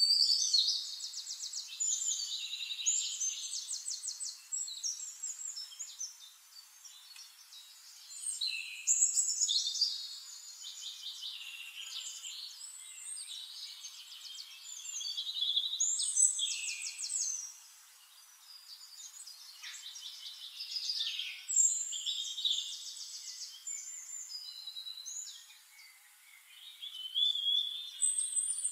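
A songbird singing, high-pitched, in phrases of fast trills and short gliding whistles, each lasting a few seconds with short pauses between.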